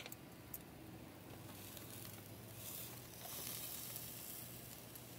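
Salmon fillets sizzling faintly on a charcoal grill grate over hot coals, the hiss swelling a little in the middle.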